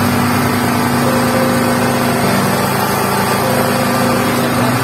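Juqiang 3 kW petrol generator's small single-cylinder engine running steadily, up to speed and generating.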